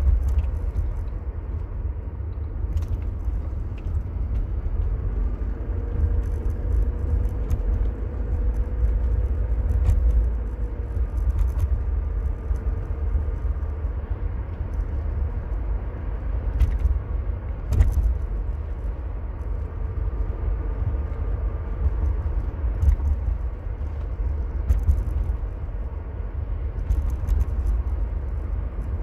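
Mercedes-Benz W124 220CE coupé on the move: a heavy, steady low road rumble with the 2.2-litre four-cylinder engine's note faintly rising and falling beneath it. Occasional sharp clicks and small rattles, the loudest about 18 seconds in.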